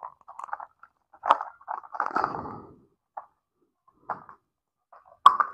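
Light clicks and rustling of plastic toy kitchen pieces being handled, a few sharper clicks among softer scrapes.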